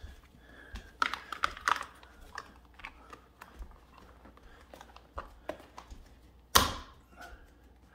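Light clicks and taps of a gaming chair's cover and fittings being handled and lined up, with one sharp, louder click near the end.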